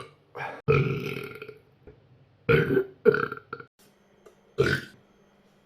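A man burping several times in a row: a short burp, one long drawn-out burp, then three shorter ones.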